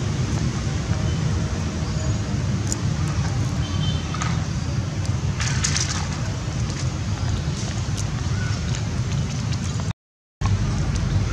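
Steady low rumble of wind on the microphone, with a few light cracks and clicks around the middle. The sound cuts out briefly near the end.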